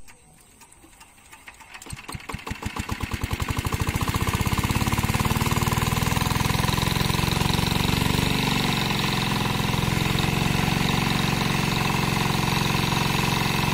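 A small engine starting up: slow, regular beats that speed up and grow louder over the first few seconds, then settle into a steady, fast run.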